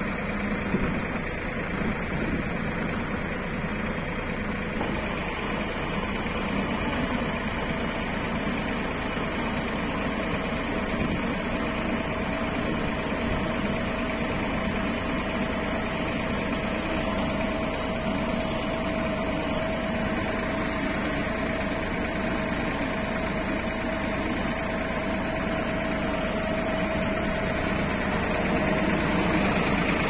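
Falcon silage baling machine running steadily as it packs chopped maize silage, with a steady whine that comes in about eight seconds in and fades near the end.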